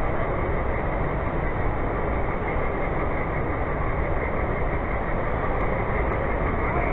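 Steady, even din of a large, crowded exhibition hall, with no single sound standing out.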